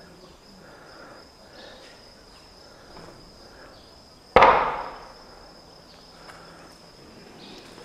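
A single sharp bang about four seconds in, fading out over about half a second, over a steady high-pitched whine.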